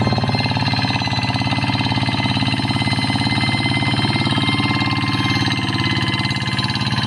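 A two-wheel hand tractor's single-cylinder diesel engine runs under load with a rapid, even chug as it pulls a plough through dry, overgrown paddy soil. A thin, steady high-pitched whine sits above the engine.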